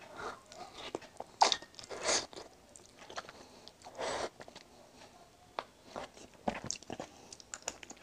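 A person eating noodles: slurping strands into the mouth three times, at about a second and a half, two seconds and four seconds in, and chewing between them with many short wet mouth clicks.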